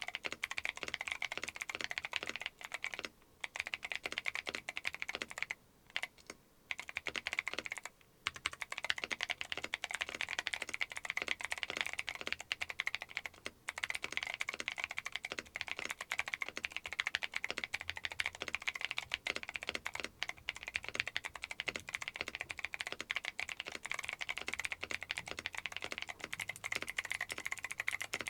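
Fast, continuous typing on a mechanical keyboard fitted with Akko Creamy Cyan clicky switches, each keystroke giving a sharp click. There are a few brief pauses in the first half.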